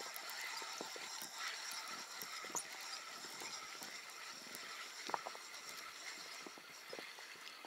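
Small waves lapping against a boat's hull: soft, irregular pats and clicks over a steady hiss.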